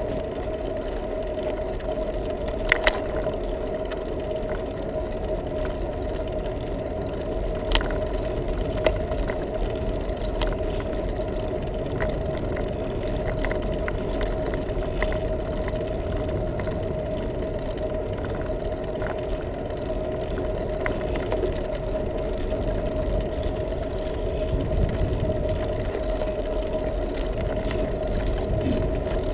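Bicycle rolling along a rough asphalt path, heard from a camera riding on the bike: a steady rumble of tyres and wind under a steady hum. A few sharp clicks or rattles stand out, the strongest about three and eight seconds in.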